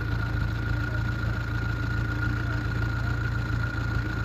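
Vintage car engine idling steadily while the car stands waiting, with a steady thin high tone running alongside.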